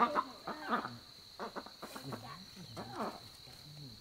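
Animals calling with short, repeated cries, busiest and loudest in the first second, over a steady high whine.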